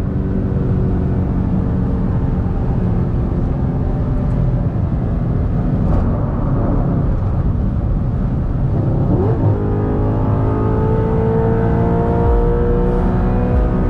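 Audi R8's 4.2-litre V8 pulling under acceleration, its pitch climbing steadily. About nine seconds in the pitch breaks briefly, then climbs again.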